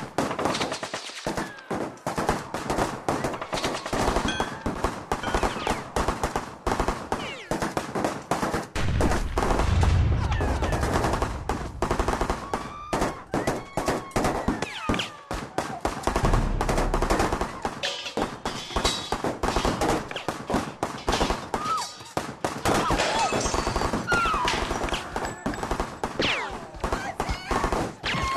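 Sustained automatic rifle and machine-gun fire in a film battle, a dense run of rapid shots with no letup. Heavier low booms come in about nine seconds in and again about sixteen seconds in.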